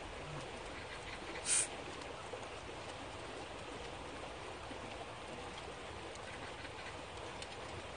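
Steady rain falling, an even hiss, with one short sharper hiss about a second and a half in.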